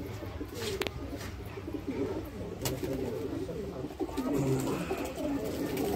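Domestic pigeons cooing, low wavering calls that overlap throughout, with a couple of sharp clicks about a second in and just before the three-second mark.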